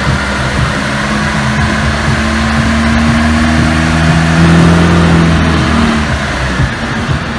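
Car engine running, its note swelling to a peak about four and a half seconds in and then falling away.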